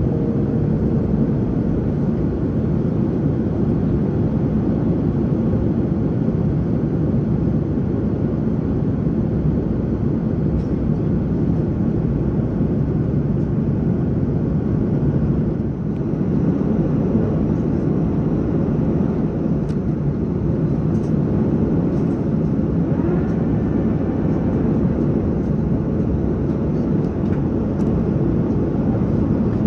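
Steady airliner cabin noise: the low, even drone of an Airbus A330-900neo in flight, during its descent.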